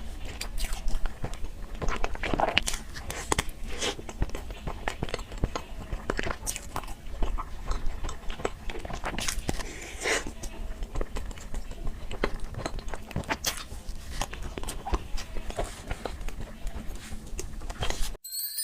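Close-miked biting and chewing: a dense, irregular run of crunches and wet mouth clicks from someone eating. It cuts off abruptly near the end.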